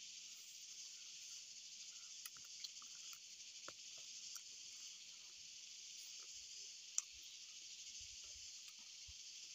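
Faint, steady high-pitched hiss of an insect chorus, with a few soft clicks and smacks of hand-eating and chewing; one sharper click about seven seconds in.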